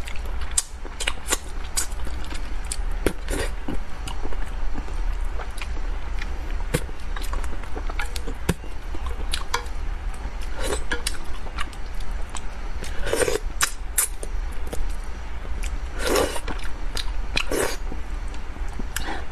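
Close-miked eating sounds: chewing spicy braised carp with many wet mouth clicks, and a few louder sucking mouth sounds near the end, over a steady low hum.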